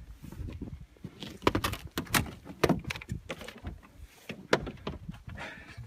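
A string of sharp clicks, knocks and rattles, as of a wrecked car's door and interior parts being handled, with the loudest knocks about one and a half, two, two and a half and four and a half seconds in.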